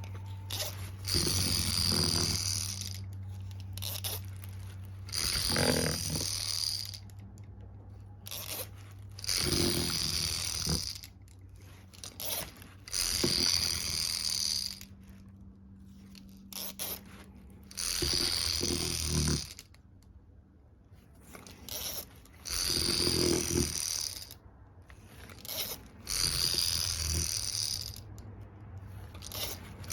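Infantino Jittery Pal unicorn baby toy vibrating. Its motor gives a steady low hum, and the toy rattles and jingles in bursts of one to two seconds, about every three to four seconds.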